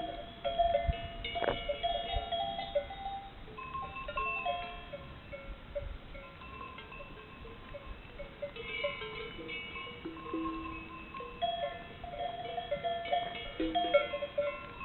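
Many cowbells on a herd of cattle, clanking irregularly and ringing at several different pitches at once, so that they sound like gamelan gongs and bowls. One sharp clank stands out about a second and a half in.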